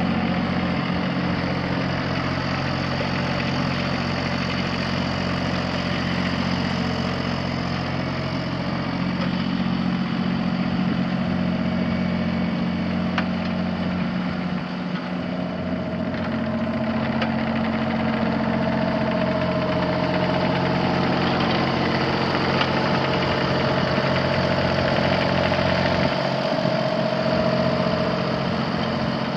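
Kubota D1703 three-cylinder diesel engine of a mini excavator running at a steady speed. A higher steady tone joins about halfway through and fades near the end.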